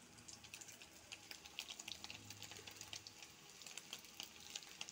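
Paneer cubes frying in oil in a wok: faint, irregular crackling and popping of the hot oil.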